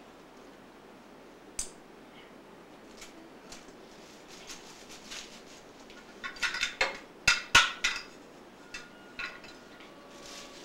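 Small hard toy pieces clicking and clattering as a child rummages through a pile of them. A few scattered clicks come first, then a busier run of clatter a little past the middle.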